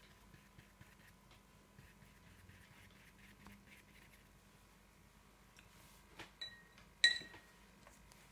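Faint soft scratching of a round watercolour brush dabbing paint onto wet paper. About six to seven seconds in come a couple of light knocks and then one sharp clink with a short ringing note, the loudest sound here.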